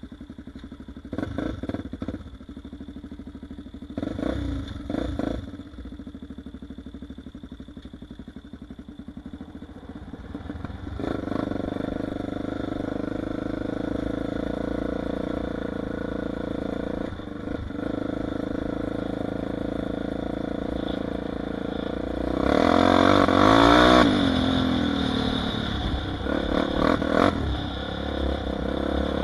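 Honda 400EX ATV's single-cylinder four-stroke engine idling with two short throttle blips, then pulling away and running steadily under way. About three-quarters of the way through it revs up hard, the loudest moment.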